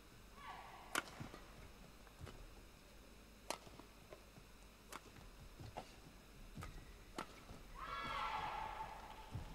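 Badminton racket strings striking a feather shuttlecock in a rally: about six sharp hits spaced one to one and a half seconds apart, the loudest about a second in. Short squeaks come between them, with a longer one lasting about a second near the end.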